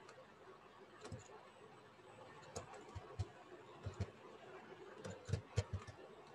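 Faint computer keyboard keystrokes: scattered single clicks, with a quicker run of them about five seconds in.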